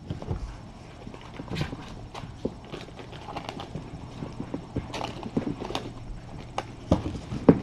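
Scattered light taps, knocks and thumps of kittens scampering and playing on the floor and rug, coming irregularly, over a low steady hum.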